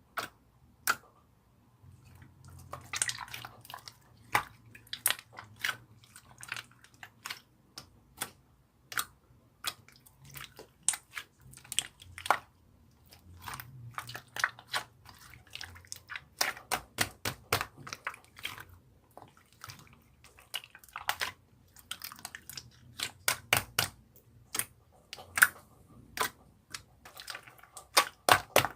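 Irregular sharp clicks and taps, some coming in quick runs of several a second, over a faint low hum.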